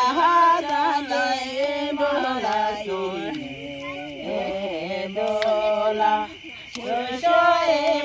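One voice singing a slow, unaccompanied song with long held notes that bend and waver, pausing briefly for breath about three and six seconds in.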